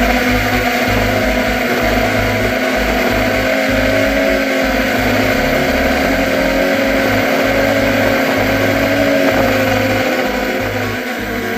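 Electric motors and 8-inch propellers of a quadcopter running in flight, a steady whine with slight pitch shifts as the throttle changes, heard through the onboard camera's microphone with wind rumbling against it.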